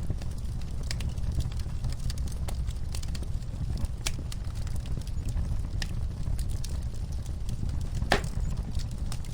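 Wood fire crackling in a fireplace: a steady low rumble of flames with scattered sharp pops and snaps, the loudest about eight seconds in.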